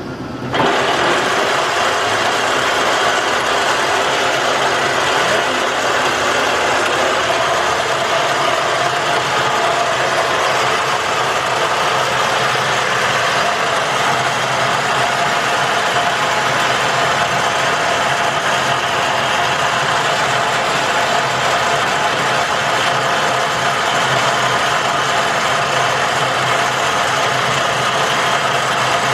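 Metal lathe switched on about half a second in and running steadily, a constant mechanical hum with a faint steady whine.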